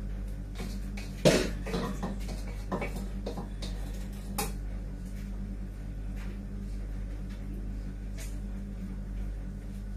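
A spatula scraping and knocking against a large pan of rice while stirring. There is a cluster of knocks and scrapes in the first few seconds, the loudest about a second in, and one more later on, over a steady low hum.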